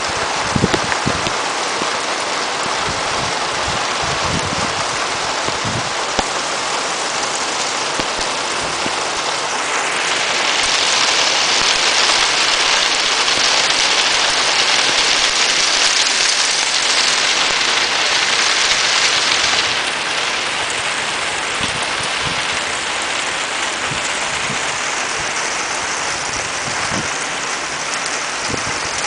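Steady rain falling on corrugated fibre-cement roof sheets, a dense hiss that grows heavier about ten seconds in and eases again about ten seconds later. A few low knocks stand out near the start and near the end.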